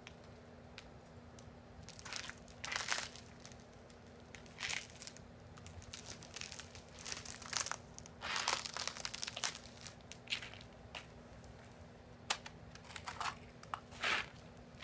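Ice-laden trees crackling in an ice storm, with ice breaking and clattering down in about a dozen irregular bursts from about two seconds in.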